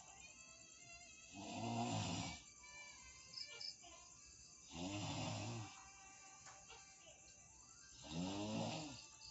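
A man snoring in deep sleep: three drawn-out, pitched snores, about three seconds apart.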